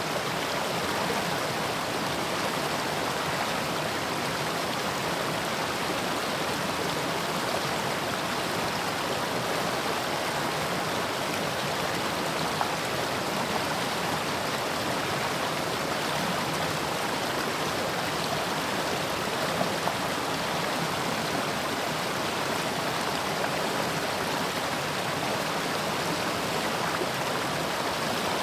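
Mountain stream rushing steadily over rocks, a continuous even flow of water.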